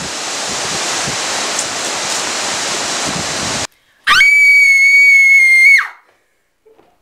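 Wind noise on the microphone, cut off abruptly after about three and a half seconds. Then a girl's loud, high-pitched scream, held on one pitch for under two seconds and dropping away at the end.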